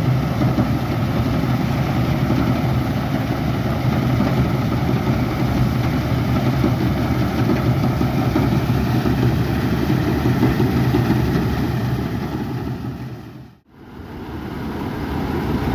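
Rice harvesting machine's engine running steadily with a constant low hum. Near the end the sound fades out to silence for a moment and fades back in.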